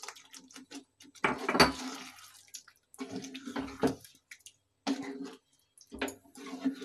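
Wooden spatula stirring paneer cubes into thick tomato gravy in a kadhai: wet squelching and scraping against the pan in irregular strokes, loudest about a second in.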